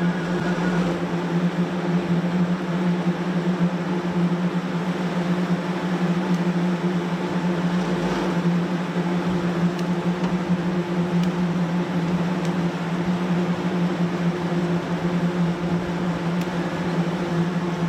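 Heavy road-construction machine's engine running steadily: a constant low drone with mechanical noise over it, no change in speed.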